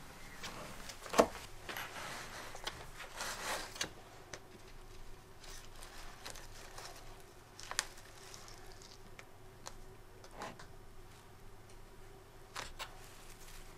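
Potted plant being handled at a ceramic sink: a sharp knock about a second in, then scattered rustles and small clicks as the plant is worked out of its plastic pot.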